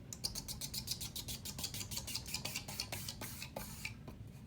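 Hampton Bay Cameron II Plus ceiling fan just switched off, giving a fast even ticking rattle of about eight clicks a second that stops about four seconds in.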